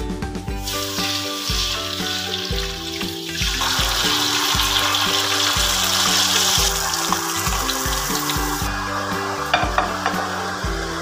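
A whole gourami sizzling as it fries in hot oil in a wok. The hiss grows much louder about three and a half seconds in and eases off near the end. Background music with a steady beat plays throughout.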